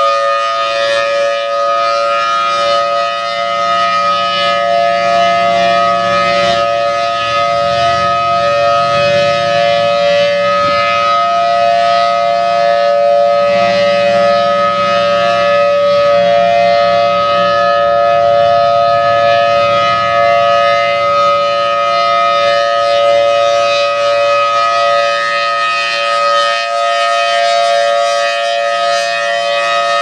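Federal Signal Thunderbolt 1000T civil defense siren sounding the steady Alert signal: a loud, held two-note chord from its 5/6-port rotor, just settling at full pitch at the start. The loudness swells and dips slightly as the horn rotates.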